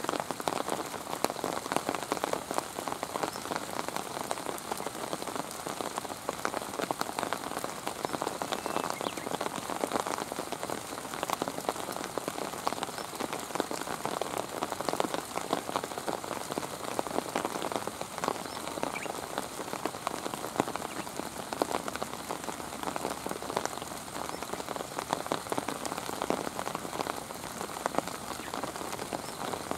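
Steady rainfall, an even hiss made up of countless small, sharp drop hits.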